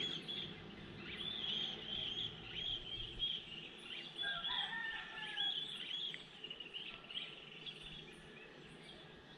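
Several birds singing and chirping: a steady run of quick, repeated high chirps, with a lower warbling song joining about four seconds in, easing off near the end.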